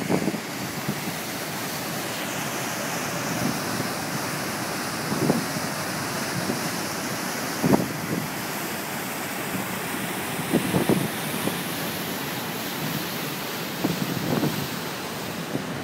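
Wake water churning behind a motor ship, mixed with steady wind noise on the microphone, which swells briefly louder a few times.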